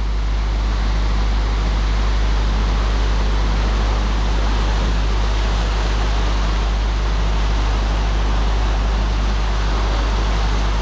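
Floodwater rushing through fully raised dam gates: a steady, loud rush of churning water with a constant deep rumble underneath.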